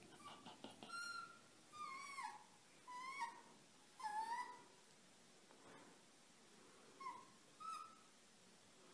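Young fox whining softly: a string of short, high whines that bend up and down in pitch, with a pause of a couple of seconds before two more near the end.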